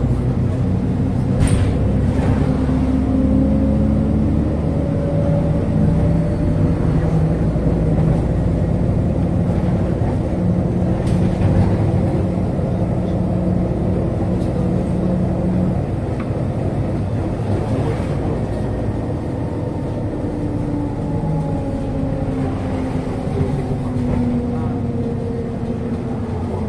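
MAZ-103 city bus under way, heard from inside the cabin: engine and drivetrain running with a low rumble and a whine that slowly rises and falls as the bus changes speed, with a few faint rattles.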